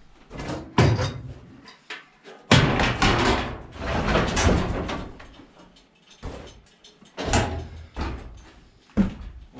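Wooden boards and the old grain elevator's metal trough knocking and banging as the elevator is worked loose by hand. A few separate knocks come first, then about three seconds of continuous scraping and rattling, then more single bangs.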